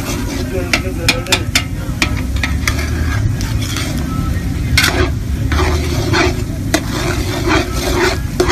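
A metal ladle stirring shredded vegetables in hot liquid in a large aluminium cooking pot, scraping and clinking against the pot's sides again and again over a steady low rumble.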